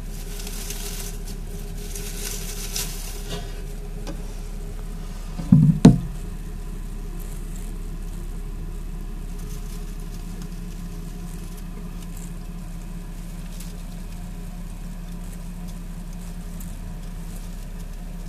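Shredded-paper bedding rustling under a hand over the first few seconds, then a single loud thump about six seconds in, over a steady low hum.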